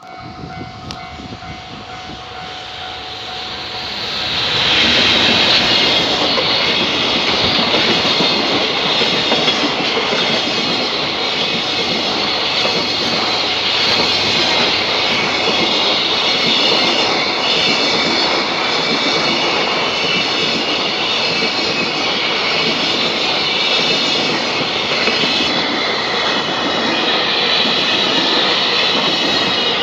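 JR Freight EF210 electric locomotive hauling a freight train past at a level crossing: after a quieter approach with the crossing alarm's steady tones audible, the train arrives about four and a half seconds in and its loud rumble and wheel clatter on the rails continue without let-up as the wagons go by.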